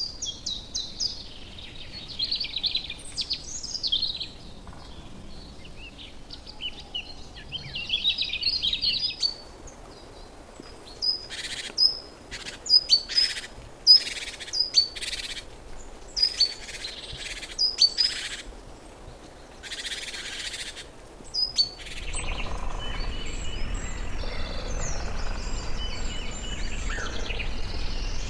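Birds calling: dense high twittering for the first nine seconds, then a run of sharp, repeated chip notes, one or two a second. About two-thirds of the way through this gives way to a steady background hiss with fainter calls.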